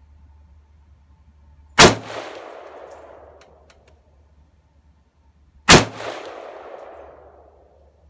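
Two shots from a PSA M4-style AR-15 carbine, about four seconds apart, each followed by a long fading echo.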